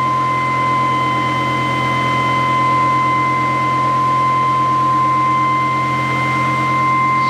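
Prime-mover-driven generator rig spinning steadily at about 3,400 RPM: an even hum with a steady high whine on top, not changing in speed, while its generator coils charge batteries.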